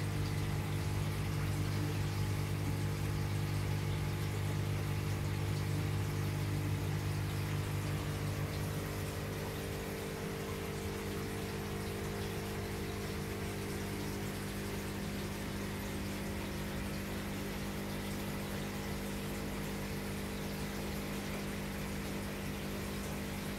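Aquarium pump and filtration running: a steady electric hum over a wash of moving water. The hum eases a little about nine seconds in.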